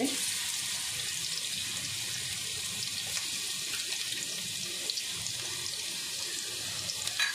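Crushed garlic sizzling in hot oil in a kadhai: a steady hiss with small crackles that starts as the garlic hits the oil.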